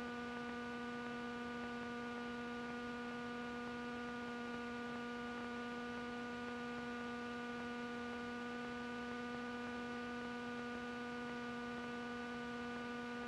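Steady electrical hum, one unchanging low pitch with a row of overtones over a faint hiss, as picked up in the aircraft's intercom and radio audio feed.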